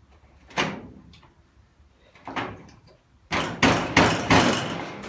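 Sheet-metal car body panel being handled and knocked into place: two separate knocks, then a burst of loud clattering and scraping metal from about three seconds in.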